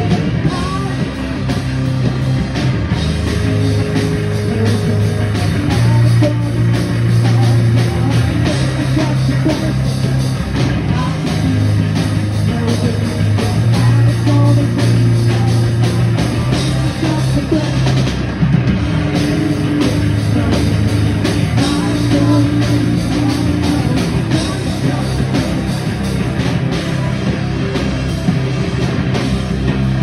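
Live post-hardcore band playing loud: electric guitars, bass guitar and a drum kit, with a woman singing into the microphone.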